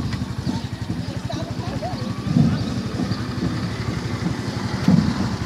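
Small motorcycle engine idling close by, a steady rapid low putter.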